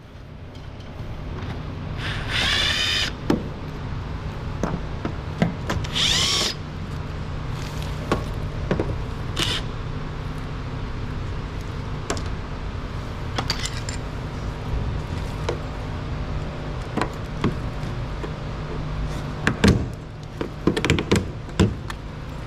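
Power drill spinning out screws in three short whining bursts, about two, six and nine seconds in, the pitch rising in each, over a steady low hum. Scattered clicks and knocks of parts being handled near the end.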